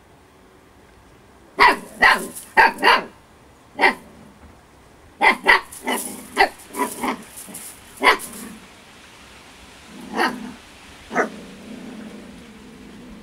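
Siberian Husky puppy barking in play: about a dozen short, sharp barks in quick clusters, with gaps between them.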